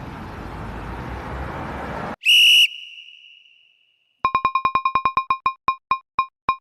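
Edited-in sound effects: a rising whoosh for about two seconds that cuts off into a short, bright ding, followed by a run of quick electronic beeps that gradually slow down.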